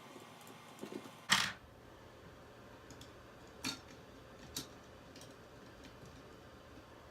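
Small hard clicks and knocks from handling the plastic parts of a toy being taken apart: one louder knock a little over a second in, then four fainter clicks spaced about a second apart.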